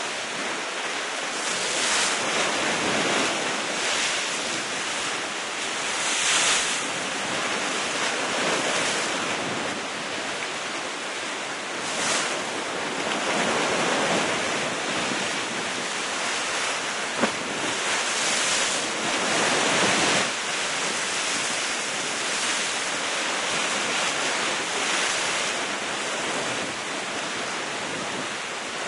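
Sea waves breaking against rocks at the foot of a cliff: a continuous wash of surf that swells with each breaking wave, with some wind on the microphone. A brief sharp crack stands out about seventeen seconds in.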